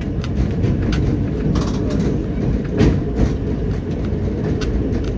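1911 electric tram running along street track, heard from inside the car: a steady low rumble of wheels on the rails with frequent clicks and knocks, one louder knock near the middle.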